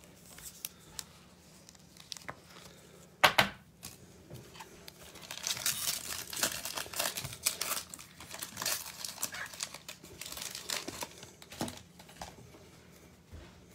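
Foil wrapper of a trading card pack being torn open by hand: a sharp rip about three seconds in, then several seconds of crinkling as the wrapper is worked open.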